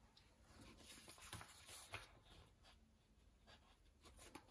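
Near silence with faint paper rustles and a few small ticks from sticker sheets being handled.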